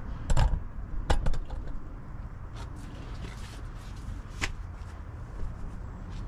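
Metal tools and brake parts knocking and clicking while a pickup's front brake is taken apart. The loudest knocks come about half a second in and just after a second, with a few fainter clicks later, over a low steady rumble.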